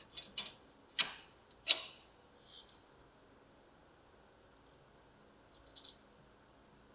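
Sharp metallic clicks and light taps of a bolt, washer and nut being fitted through an off-road vehicle's upper control arm and bearing carrier: a few distinct clicks in the first two seconds, a short scrape, then fainter ticks near the end.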